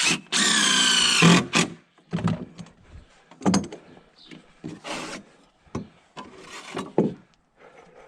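A power drill driving a screw into a wooden deck board, a steady pitched whine for about a second, ending in a sharp hit. Several separate wooden knocks and clatters follow as boards are handled and set.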